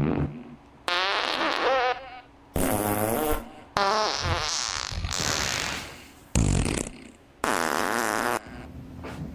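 A run of about five farts, one after another, some drawn out with a wavering, buzzing pitch and one short and low, meant to get a reaction from a cat.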